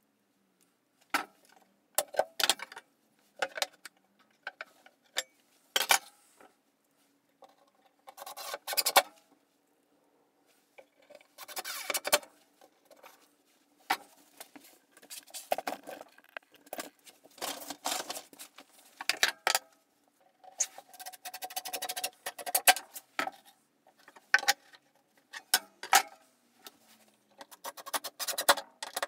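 Intermittent clatter, clicks and knocks of tools and screws being handled, in short irregular bursts with pauses between and a busier stretch in the second half.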